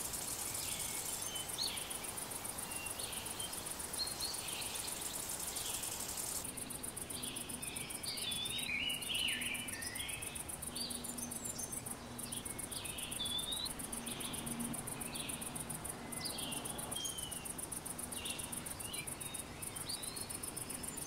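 Insects chirping in a steady, high-pitched trill of rapid pulses, with birds calling in short chirps and sweeps over it, more of them after the first few seconds.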